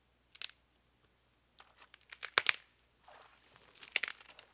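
A dead standing sapling cracking and snapping at its base as it is pushed over by hand, with dry undergrowth crunching underfoot. There is a short crack about half a second in, a dense burst of sharp cracks at about two and a half seconds (the loudest), and another burst near the end.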